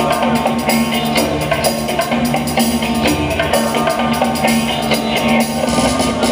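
Funk break music played loud over a sound system, with a steady drum-kit beat.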